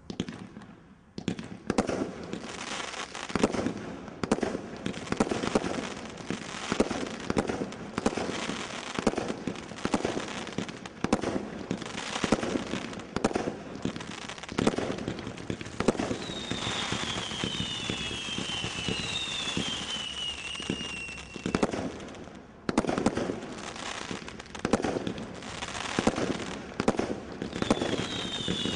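Maximum Showtime Cat 3 combination Roman candle firework firing shot after shot, with sharp launch bangs about once a second over continuous crackling. About halfway through, and again near the end, several whistles fall in pitch.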